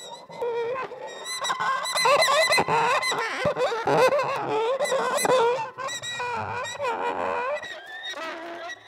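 A bow drawn across a metal coil spring set on a glass tumbler, giving a stream of wavering, shifting pitched tones with many overtones. The tones are loudest through the middle and thin out near the end.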